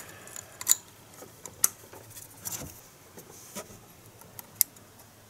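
Small plastic connector retention clips being pushed into the VVT solenoid wiring connectors by hand: a handful of sharp little clicks and ticks, roughly one a second.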